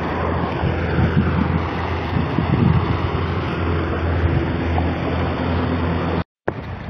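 Wind buffeting the microphone over the rush of a shallow, fast river, a loud, steady noise with a low rumble. It cuts out briefly near the end.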